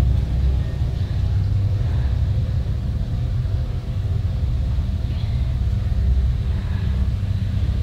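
Low, steady rumbling drone: a horror film's suspense ambience under a tense silent search.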